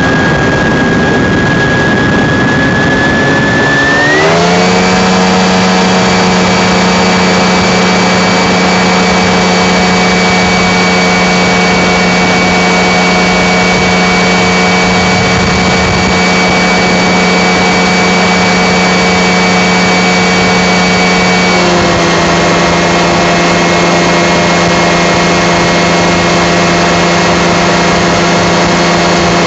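Light aircraft engine running steadily in flight, with wind noise. About four seconds in its pitch rises smoothly as power is added, then holds. Shortly after twenty seconds in it drops a little as power is eased back.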